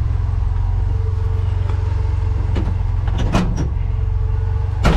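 A 1993 Ford F-150's 300 cubic-inch inline-six runs at a steady idle, heard from inside the cab. A few light knocks come around three seconds in, and a sharper clunk, the loudest sound, comes just before the end.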